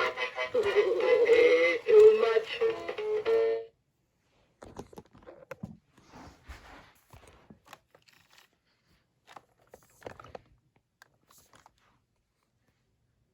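Tinny electronic Christmas melody from a spinning snowman decoration, stopping abruptly about three and a half seconds in. After it come faint, scattered clicks and handling knocks.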